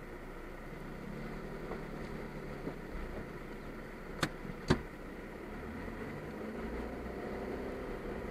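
Car engine idling, heard from inside the cabin, then pulling away near the end. Two sharp knocks come about half a second apart, a little past halfway.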